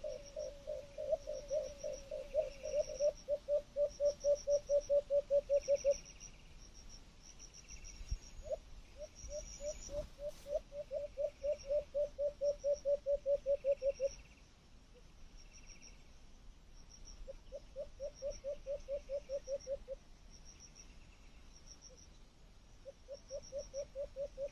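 Animal calls: a low pulsing call repeated about four or five times a second in runs of several seconds, with gaps between runs, over steady high rhythmic chirping like insects.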